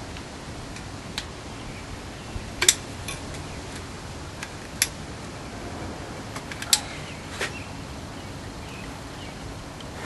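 A caulking gun being worked while sealing the edges of a homemade solar panel frame: a handful of sharp clicks and light taps spread over several seconds, with the loudest a few seconds in and about two-thirds through, over a steady background hiss.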